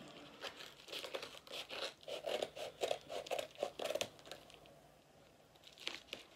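Yellow paper mailer envelope being cut and torn open with scissors: a run of crisp snips and rips, about four a second, then quieter paper rustling as it is pulled apart, with one more sharp rip near the end.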